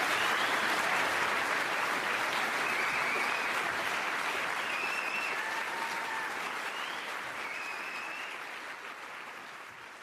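Audience applauding at the close of a talk, the clapping dying away gradually over the last few seconds.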